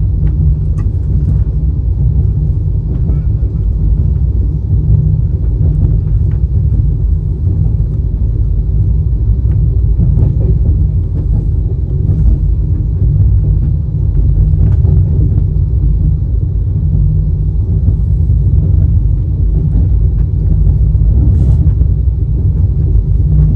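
Chozhan Superfast Express passenger train running, heard on board: a steady, loud low rumble with a few faint clicks scattered through it.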